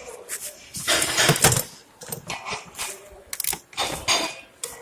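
Irregular metallic clinking and clattering, several short knocks and rattles of metal objects being handled.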